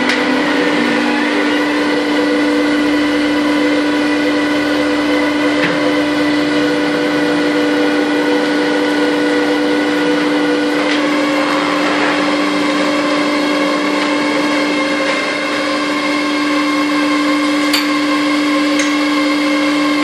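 Bag-compressing press machinery running with a loud, steady hum. The tone holds throughout, with a slight change about halfway through as the press head moves, and a few light clicks.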